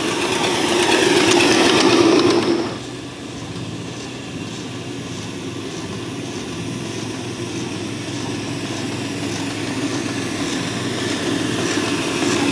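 Small ridable live-steam locomotive running on a miniature railway, its running noise and wheel clatter swelling as it comes near. About three seconds in the sound drops abruptly, then slowly builds again as the locomotive approaches.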